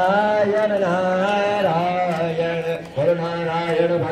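Devotional chanting sung in long, held notes, with short breaks between phrases, one about three seconds in.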